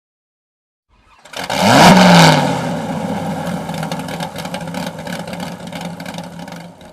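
Car engine starting and revving: the pitch sweeps up once about a second and a half in, then the engine settles into a steady run that fades out near the end.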